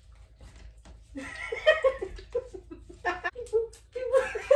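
A person laughing in short chuckling bursts, starting about a second in and coming again in the last second and a half.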